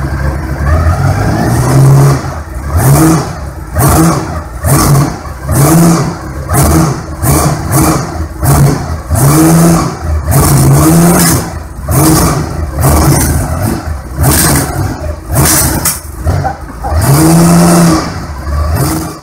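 Elenore 868 cc V8 motorcycle engine, built on a Ducati 900SS V-twin crankshaft with only two connecting rods, running on a stand. After a moment at a steady idle it is revved by hand in quick throttle blips, about one a second, each rev rising and dropping back.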